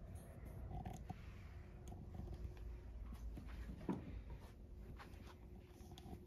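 Quiet room with faint scattered taps and rustles over a faint steady hum.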